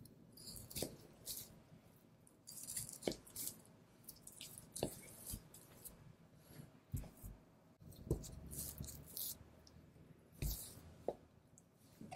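Butcher's knife slicing fat and sinew away from a raw wagyu beef knuckle, with soft wet cuts and scrapes, and a few dull taps as cut pieces of meat are set down on the cutting board.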